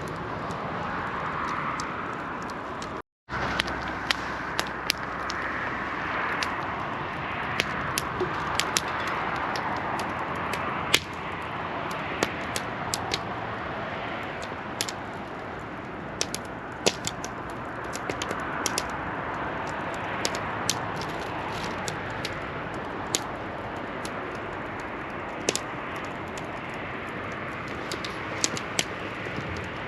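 Wood fire burning in a fire pit: frequent sharp crackles and pops over a steady rushing hiss, with a brief gap in the sound about three seconds in.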